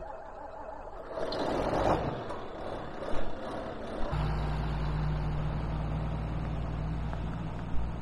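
Tractor diesel engine running as the John Deere pulls out with the mower conditioner in tow. A rush of noise builds about a second in, then settles into a steady low engine drone from about four seconds in.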